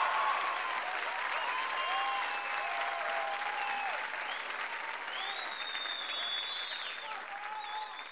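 Studio audience applauding and cheering, with shouts and high calls over the clapping. The applause eases slightly toward the end.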